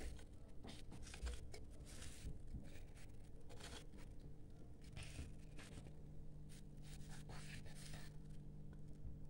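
Small spoon stirring and scraping egg fry in a miniature cooking pot: faint, irregular scrapes over a steady low hum.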